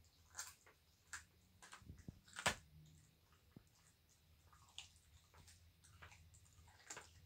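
Bobcat chewing raw chicken drumsticks: faint, irregular wet clicks and crunches, with one louder crunch about two and a half seconds in.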